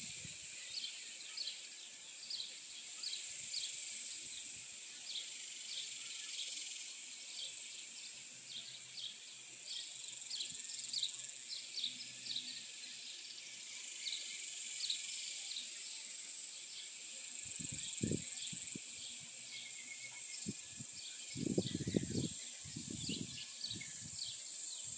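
Summer insect chorus: a steady high-pitched buzz with short chirps repeating about twice a second. A few low thuds or rumbles come near the end.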